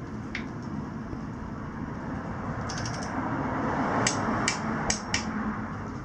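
Sharp metallic clicks of a torque wrench on the Sur Ron Light Bee's handlebar clamp bolts as they are tightened to 5 newton meters: a short cluster about halfway through, then four clicks in about a second near the end.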